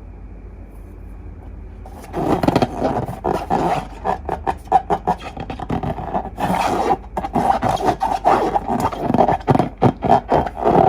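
Slime being squeezed and worked against rubber balloons: a dense, irregular run of squelching, scraping and rubbing that starts about two seconds in after a faint hum.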